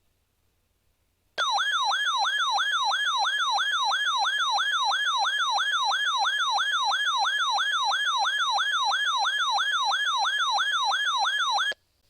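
A weather alert radio's electronic siren alarm: a fast rising-and-falling wail, about three sweeps a second. It starts a little over a second in and cuts off shortly before the end. It signals that the radio has received a Severe Thunderstorm Warning alert from NOAA Weather Radio.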